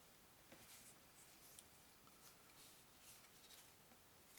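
Near silence, with a few faint light rustles and taps of cardboard game cards being handled.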